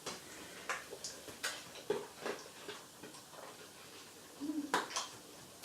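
Scattered light clicks and taps, irregular and a few per second at most, from a dog working laundry out of a washing machine into a basket.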